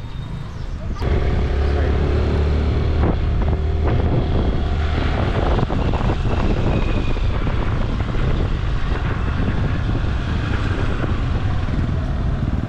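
Motorcycle engine running on the move, with wind noise on the microphone; it gets louder about a second in.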